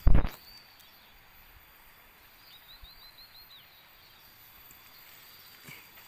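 A short low thump right at the start, then quiet outdoor forest ambience in which a small bird gives a quick run of about five high chirps in the middle. A faint steady high tone runs underneath.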